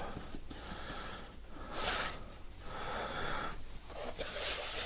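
Hands rubbing and smoothing a fabric covering over a model plane's frame, a few soft swishes.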